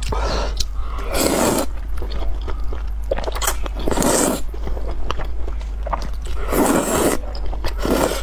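Noodles being slurped from a bowl of spicy malatang broth, in about five bursts, with chewing sounds between them.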